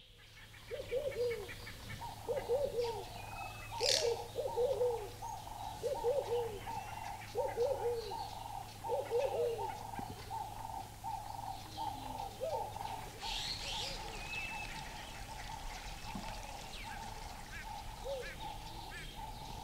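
Wild birds calling. A low, rising-and-falling call repeats every second or so for the first ten seconds, then only now and then, over a steady pulsing chorus and scattered high chirps.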